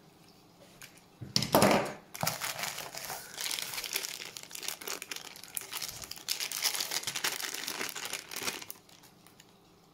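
Clear plastic bag crinkling as hands handle a diecast toy car inside it: a louder rustle about a second and a half in, then steady crinkling that stops near the end.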